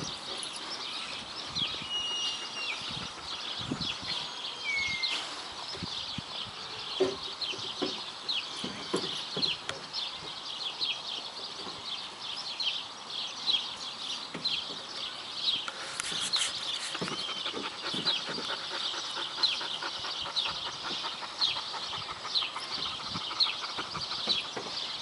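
Small birds chirping in a steady, dense chorus of short high chirps, several a second, with a few longer whistled notes early on. Occasional low soft thumps sound underneath.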